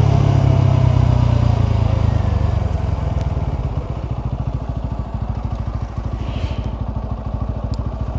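Motorcycle engine running as the bike rides slowly, easing about halfway through to a steady, quickly pulsing idle as it rolls to a stop.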